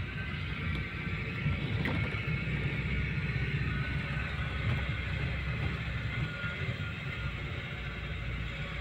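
A car being driven along a street, heard from inside the cabin: a steady low rumble of engine and road noise.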